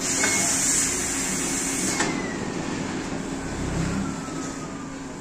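Pneumatic flat-bed screen printing machine cycling: a sharp hiss of compressed air for about two seconds as the cylinders lift the screen frame, cutting off suddenly, followed by a faint whine that falls in pitch and a brief low rumble.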